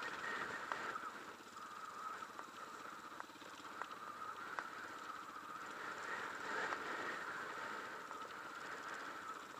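Off-road motorcycle engine running under way over rough grassland, heard from the rider's own bike, with scattered short clicks and knocks.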